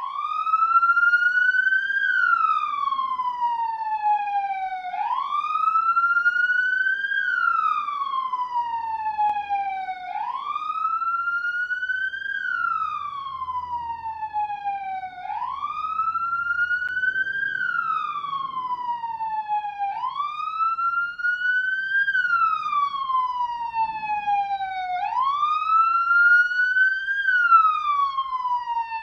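Police car siren sounding a slow wail: the pitch climbs for about two seconds, then falls for about three, and the cycle repeats every five seconds or so.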